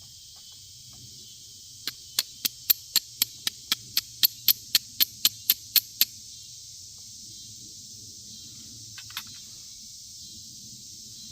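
Carbon steel striker struck rapidly against a flint rock to throw sparks onto char cloth: about seventeen sharp scraping clicks at roughly four a second, then a couple of faint taps a few seconds later.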